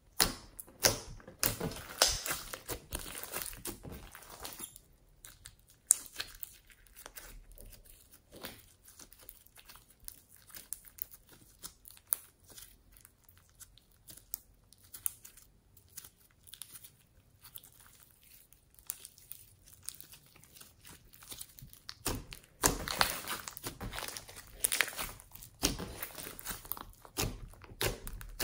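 Hands kneading, poking and stretching glossy slime mixed with foam beads: irregular sticky clicks. They come thick in the first few seconds and again over the last six or so, and sparser in between.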